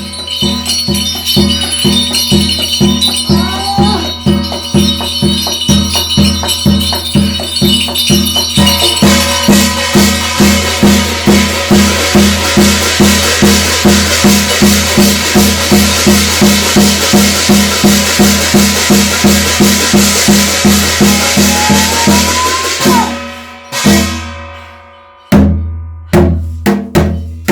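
Korean shamanic gut ritual music: a drum beating steadily about twice a second under shaken jingling percussion, bells and cymbals. The jingling grows much louder about nine seconds in, and near the end the steady beat breaks off into separate strikes.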